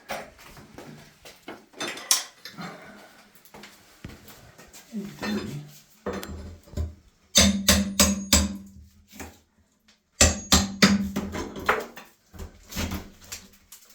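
Cordless power tool cutting into the ceiling in several short, stop-start bursts, the longest about a second and a half, with a steady motor hum under a rapid clatter.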